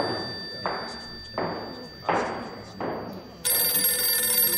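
Five evenly spaced thumps about 0.7 s apart, footsteps on a hard floor, then a telephone bell ringing from about three and a half seconds in.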